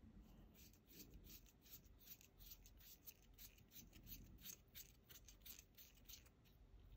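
Quick, light scratchy rubbing strokes at a small hobby bench, about four a second and quiet, like abrasive or bristle work on a small plastic model part.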